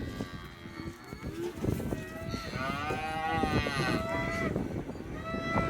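Cattle mooing: one long, arching moo from about two seconds in, with shorter calls before and after it, over scattered knocks.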